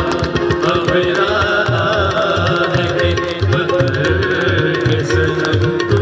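Live music: male voices singing long, wavering notes of a sung Urdu nazm over a steady run of tabla strokes.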